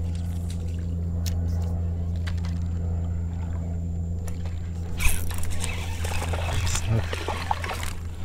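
A steady low hum with a few even overtones runs throughout. About five seconds in, water splashing and rustling start as a wading angler moves through the water and handles his rod and reel close to the microphone.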